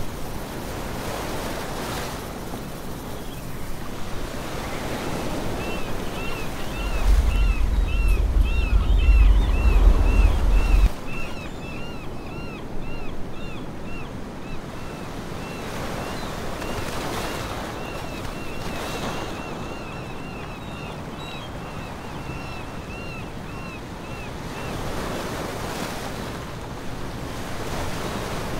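Waves washing in swells, with wind on the microphone that rumbles heavily from about seven to eleven seconds in. A short high chirp repeats a few times a second from about six seconds in to near the end.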